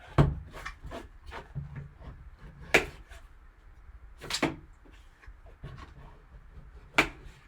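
Cardboard card box being opened and its packaging handled: scattered clicks and knocks with a few short scraping rustles. The sharpest come about a quarter-second in and near the end.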